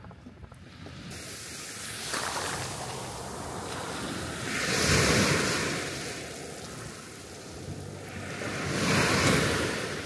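Small waves washing up on a sandy beach, the surf swelling twice, about halfway through and again near the end.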